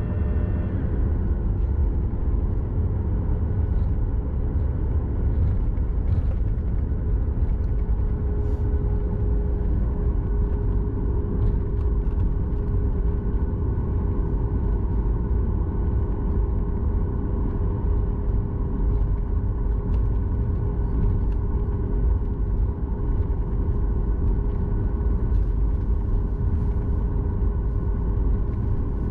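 Cabin noise of a Boeing 737 MAX 8 taxiing after landing: a steady low rumble of the idling CFM LEAP-1B engines and rolling tyres, with a steady hum.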